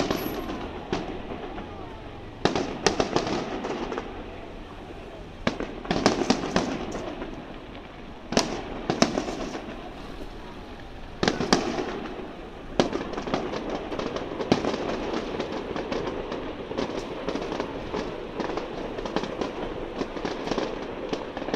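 Aerial fireworks shells bursting with sharp bangs a few seconds apart, each trailing off in crackle. After about half the time the bangs give way to a dense, continuous crackling of many small reports.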